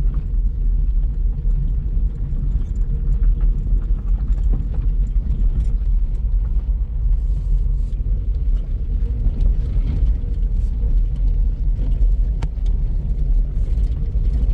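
A car driving, with a steady low rumble of engine and road.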